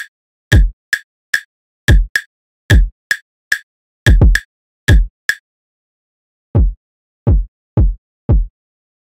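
Electronic drum pattern from sample-pack one-shots: deep kick drum thumps and sharp rimshot clicks looping in an Afrobeat rhythm until about five seconds in. Then playback stops and four single kick hits sound a little apart, as kick steps are tapped into the pattern.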